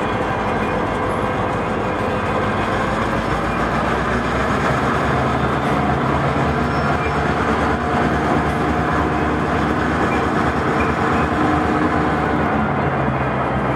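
Freight train of enclosed auto-rack cars rolling slowly past on the rails: a steady rumble with some faint steady tones above it from about a third of the way in.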